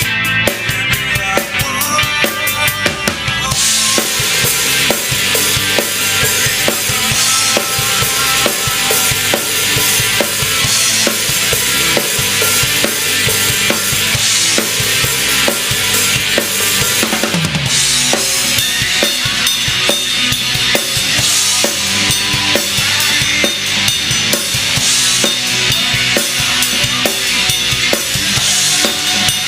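Rock band playing with a DW Collectors drum kit to the fore: kick, snare with rimshots, and cymbals driving a steady beat. The cymbals come in heavier about three and a half seconds in, and a short low slide falls about halfway through.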